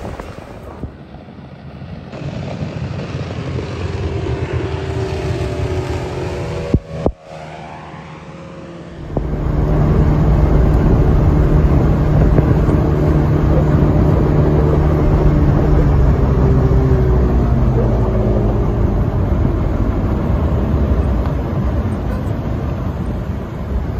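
An engine running at speed with a steady drone. There is a sharp click about 7 seconds in, the engine comes in much louder about 9 seconds in, and its pitch eases down in the last several seconds.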